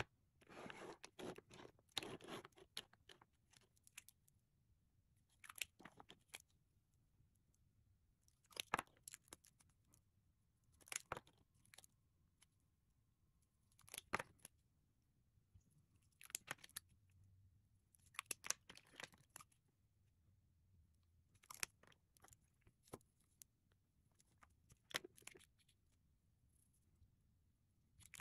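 Faint clicks and taps of lipstick tubes being handled: caps pulled off and pushed back on, and tubes set down on a wooden tabletop. They come in small clusters every two to three seconds, the busiest in the first couple of seconds.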